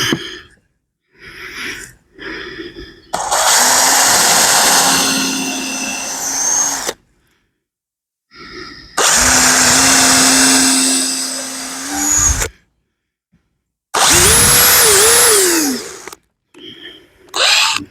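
Power drill driving screws into the wooden corners of a beehive deep box, in three runs of a few seconds each with pauses between; the motor pitch sags and shifts under load, and wavers up and down in the last run.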